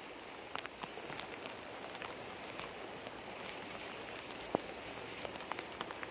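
Rain falling, a steady hiss with scattered sharp ticks of drops hitting nearby surfaces, one louder tick about four and a half seconds in.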